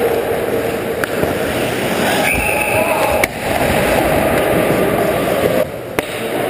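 Ice hockey rink noise with players' voices. A referee's whistle blows one steady blast of about a second, a little over two seconds in, stopping play after a goal.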